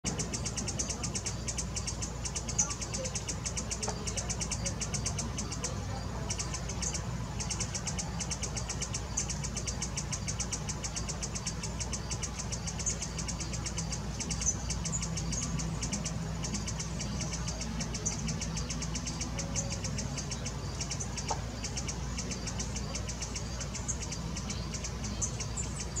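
Perched male ruby-throated hummingbird giving short, high chip notes now and then. Behind them runs a steady, fast, high-pitched pulsing, over a low steady rumble.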